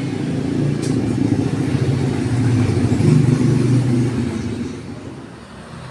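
A motor vehicle's engine passing by, growing louder to a peak about three seconds in and fading out near the end.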